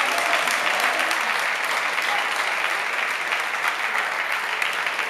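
Spectators in a sports hall applauding: a dense, steady wash of clapping that swells up at the start and eases slightly near the end.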